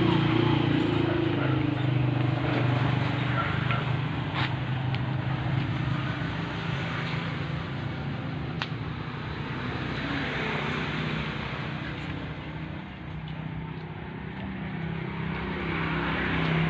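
A engine running steadily, its pitch sagging and rising a little, with a couple of sharp clicks about four and nine seconds in.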